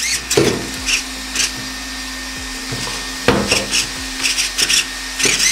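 Electric motor of a homemade RC car whining in short throttle blips, its pitch dipping and rising quickly three times, over a steady low hum, with knocks and rattles as the car is handled.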